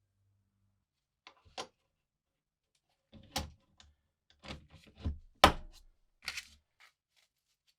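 A series of sharp knocks and clicks, about eight in all, from tools or small parts being handled and set down on a workbench, the loudest knock about five and a half seconds in.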